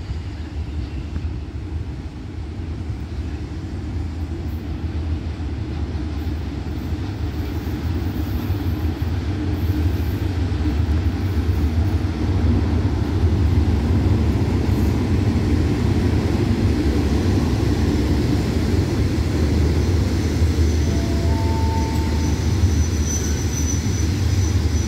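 Hitachi diesel-electric locomotive hauling a passenger train, its engine rumble and the wheels on the rails growing louder as it comes in and passes, then the coaches rolling by. A thin high squeal comes in near the end.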